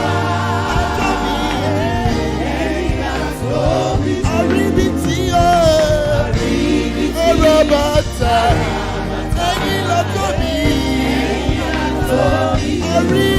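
Live gospel worship music: a choir and lead singer sing a praise song over steady instrumental accompaniment.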